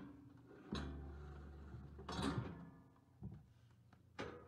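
Steel auto head yoke on a cattle crush clanking and rattling as a cow pushes its head through and the yoke closes on its neck. A low rumble comes in just under a second in, a loud metallic clatter at about two seconds is the loudest, and sharp knocks follow near the end.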